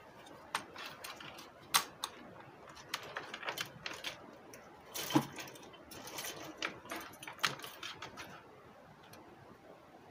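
Irregular clicks, knocks and rattles from a car stereo head unit's metal case, its wiring loom and a pair of pliers being handled and set down on a workbench. The loudest knock comes about five seconds in, and the handling thins out to faint rustles near the end.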